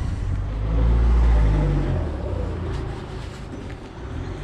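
A road vehicle driving past, its low engine rumble swelling about a second in and then fading away.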